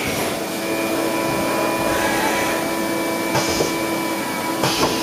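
Hardinge Cobra 42 CNC lathe running, its spindle and chuck turning: a steady mechanical whir with several steady tones. Two short clattering knocks come about three and a half and four and a half seconds in.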